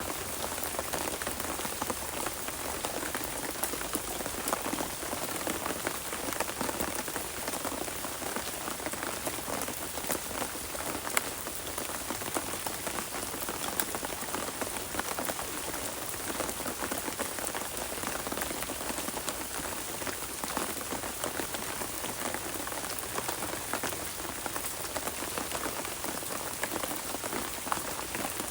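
Steady rain falling, with the close patter of individual drops striking surfaces.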